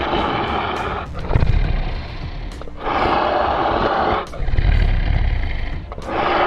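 Dinosaur roar sound effects: several rough roars in a row, each about a second long, with a low rumble beneath.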